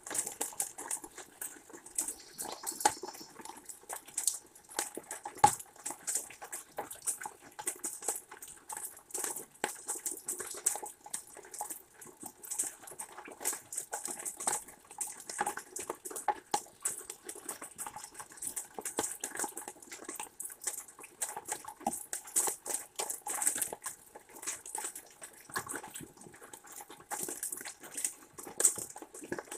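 Rain dripping and pattering close to the microphone: a dense, irregular run of small ticks and splashes.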